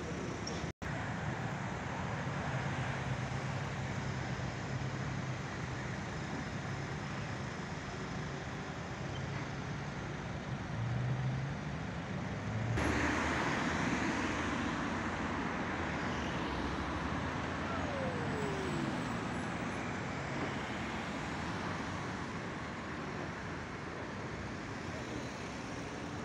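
Steady city street traffic: cars and other vehicles running and passing, with a low engine hum and tyre noise. The sound changes abruptly partway through, where it becomes brighter and hissier.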